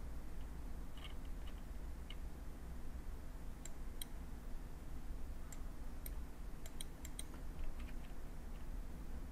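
Computer mouse clicking and its scroll wheel ticking: a handful of scattered sharp clicks, most of them in the middle of the stretch, over a low steady hum.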